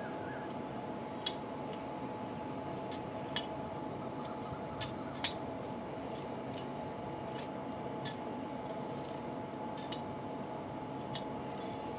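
Sharp metallic clinks, about seven scattered irregularly, from a railway worker handling the iron screw coupling and its tightening handle on a locomotive's buffer beam. A steady machine hum with a constant tone runs underneath.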